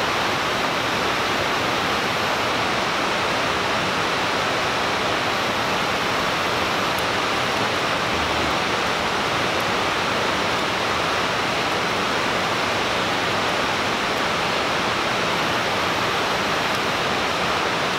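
A steady, unbroken rushing noise that holds the same level throughout.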